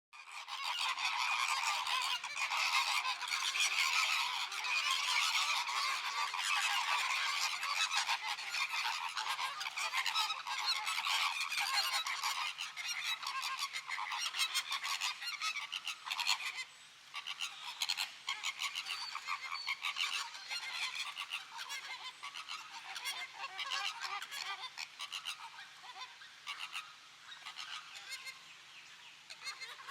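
A flock of flamingos honking and chattering, many nasal calls overlapping in a dense continuous din. It starts abruptly, is loudest over the first half, drops out for a moment partway through, then goes on a little quieter.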